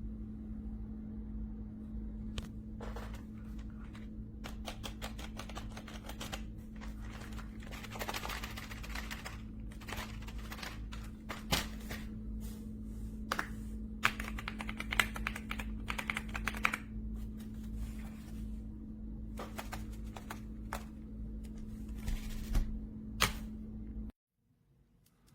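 Typing on an RK Royal Kludge S98 mechanical keyboard: bursts of rapid keystroke clicks, some louder clacks, over a steady low hum. The sound cuts off suddenly about a second before the end.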